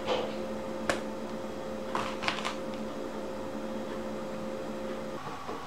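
Kitchen knife slicing a peeled cucumber on a plastic cutting board: several short sharp taps as the blade meets the board, over a steady hum that stops about five seconds in.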